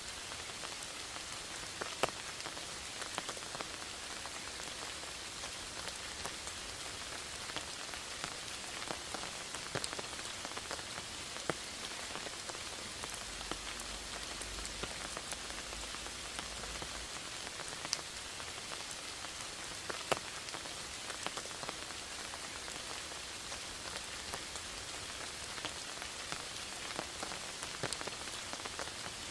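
Steady rain falling through a forest, an even hiss with single drops ticking sharply here and there, a couple of them louder, about two seconds in and near twenty seconds.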